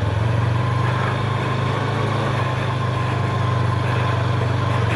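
Macbor Montana XR5 510 motorcycle engine running steadily at an even pitch under light throttle, riding on a gravel track.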